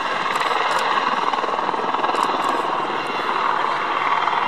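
Boeing AH-64D Apache helicopter flying close by, its main rotor and twin turbine engines making a loud, steady noise.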